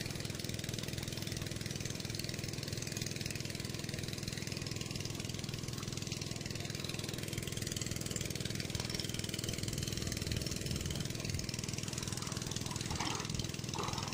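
An engine running steadily at an even pitch and level, with no change in speed.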